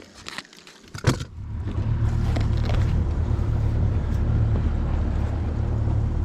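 Bass boat's outboard motor starting with a sharp click about a second in, then running steadily under way.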